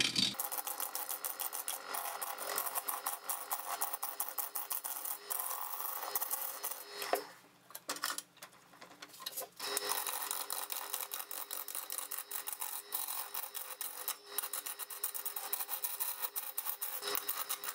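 A wood lathe spinning a log blank while a hand-held gouge roughs it down, making a rapid, dense chatter of clicks and scraping as the tool meets the uneven surface. Partway through, the cutting drops away to a quieter stretch with a faint low hum for a couple of seconds, then resumes.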